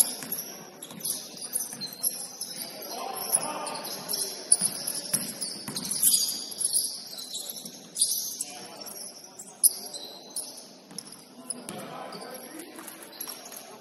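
Basketball game in play: sneakers squeaking sharply on the court throughout, with a ball bouncing now and then and players' voices in the background.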